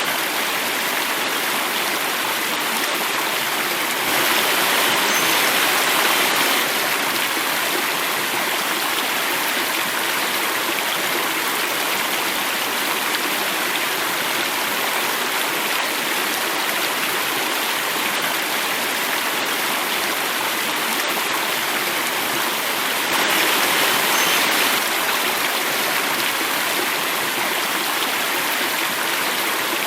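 Water cascade, a steady rush of flowing and falling water that swells a little louder twice, about four seconds in and again near twenty-three seconds.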